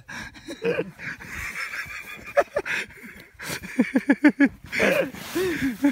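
A man laughing: a quick run of short, pitched bursts about four seconds in, and more laughing near the end, with a few knocks from the handheld phone.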